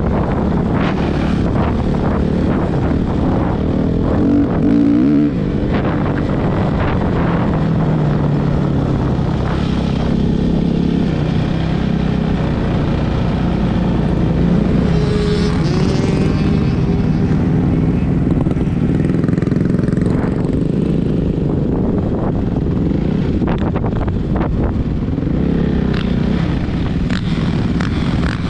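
Suzuki RM-Z450 motocross bike's four-stroke single-cylinder engine running hard on a ride, its note rising and falling as the throttle opens and closes.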